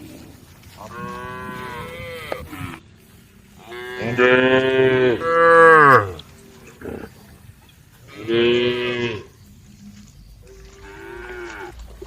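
Cattle mooing: four separate long calls, the loudest two running together about four to six seconds in, and a fainter one near the end.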